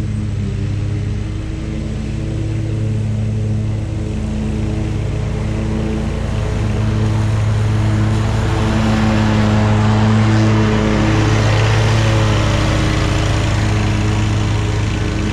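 Hustler zero-turn mower running at mowing speed, its engine holding a steady hum with the blades cutting grass. It grows louder as the mower approaches, is loudest as it passes around ten seconds in, then eases off as it heads away.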